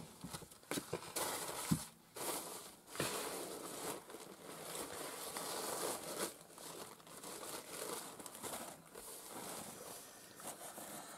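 Tissue paper rustling and crinkling as a parcel is unwrapped by hand, irregular, with a few sharper crackles in the first few seconds.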